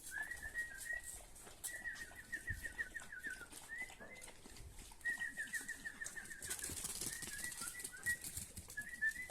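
A small songbird singing: phrases of high notes, including two quick trills of about a dozen short falling notes each, over faint rustling.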